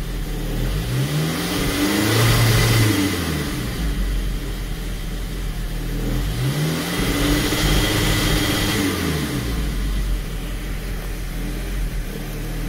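Direct-injected VW Passat engine revved twice from idle, each time climbing and settling back over about three seconds. It runs on a largely untuned aftermarket engine controller that is controlling the high-pressure fuel pump.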